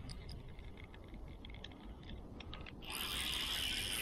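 Spinning fishing reel handled and cranked: scattered light clicks, then, about three seconds in, a loud whirr of about a second as the reel is wound in.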